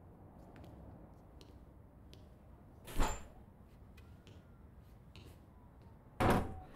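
A door's lever latch clicks sharply about three seconds in as it is opened, and the door shuts with a loud knock near the end, over a low steady room hum.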